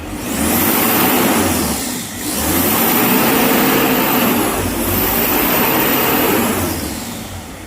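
Vehicle engine revved in three surges of about two seconds each, with a high whistle that climbs, holds and falls away with each surge.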